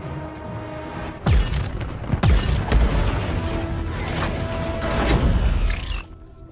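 Action-film sound mix: a heavy boom a little over a second in and another about a second later, then a dense crash of explosion and flying debris over a music score. It all drops away suddenly near the end.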